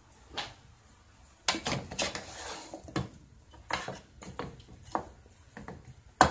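Irregular knocks and scrapes of raw pork neck bones being turned over by hand in a large pot, with a busier cluster of clatter about a second and a half in.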